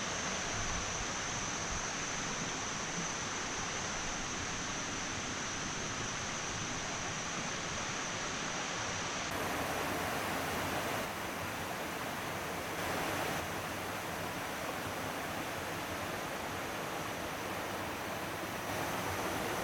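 Rushing water of a waterfall and its stream, a steady even wash of noise with a thin high steady tone above it. The sound changes abruptly a few times, becoming brighter from about halfway through.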